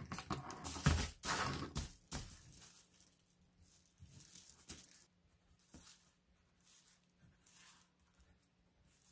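Tissue paper rustling and crinkling as it is handled and smoothed over a paper sewing pattern. The loudest rustles come in a few bursts during the first two seconds, then fainter, scattered rustles follow.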